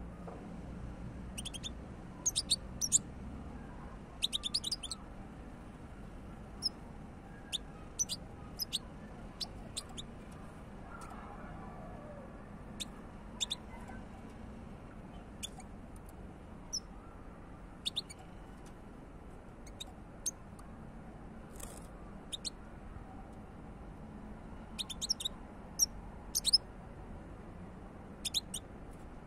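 Caged European goldfinch calling: short, sharp, high chirps, some single and some in quick clusters of three or four, scattered through, over a faint steady low background noise.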